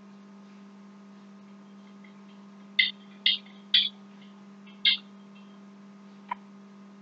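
Steady electrical hum on a phone conference line, with four short hissy crackles in the middle and a faint click near the end.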